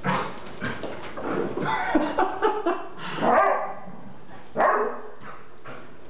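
Two dogs, a Dachshund and an Airedale terrier, in rough play, giving short bursts of barking, about four over a few seconds.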